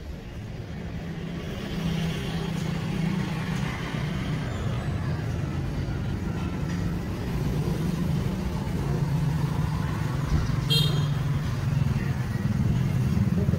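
A motor vehicle engine running, a steady low hum that gets gradually louder.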